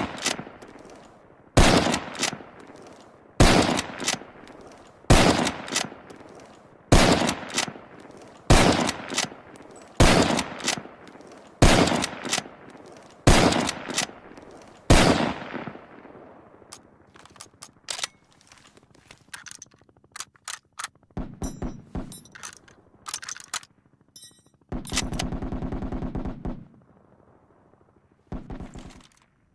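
Lee-Enfield bolt-action rifle fired about ten times, one shot roughly every second and a half to two seconds, with clicks of the bolt between shots. Afterwards come scattered metallic clicks and a short, rapid rattle of reloading, with a couple of clicks near the end.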